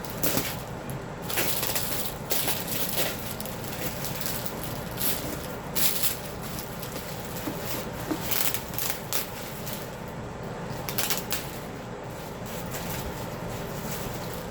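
Packaging being unpacked by hand: irregular rustling and crinkling with scattered sharp crackles and knocks as the box and wrapping around a new ceramic heater are handled.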